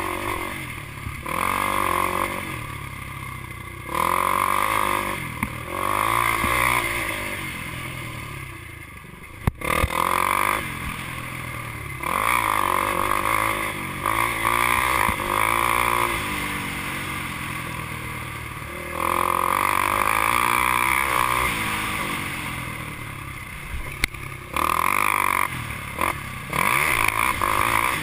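Racing ATV engine heard from onboard, the throttle opened and closed over and over so the revs climb and drop every few seconds, with an occasional sharp knock from the machine over the rough ground.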